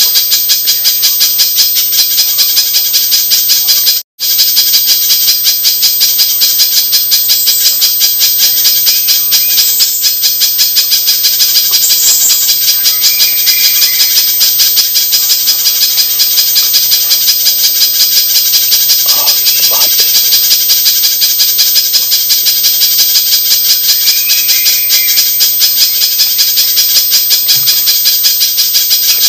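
Spiderhunter (pijantung) calling in a rapid, unbroken series of high chips, a looped lure recording. The sound cuts out briefly about four seconds in and then resumes.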